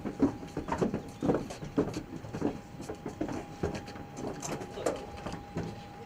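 Footsteps of several pallbearers in boots climbing an aircraft's metal loading ramp, an uneven run of knocks about two a second. A faint steady high tone runs underneath.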